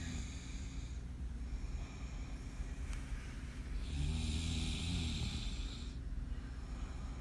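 A man snoring in his sleep. One snore trails off about a second in, and a second, longer snore of about two seconds comes about four seconds in.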